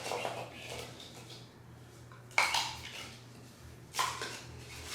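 Three sharp metallic clinks and knocks as a chair's gas lift cylinder is handled and set into the chair base, each with a short ring.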